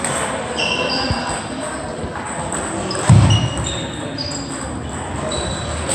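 Table tennis balls clicking off bats and tables across a busy hall, with short squeaks of shoes on the sports floor and a loud dull thump about three seconds in.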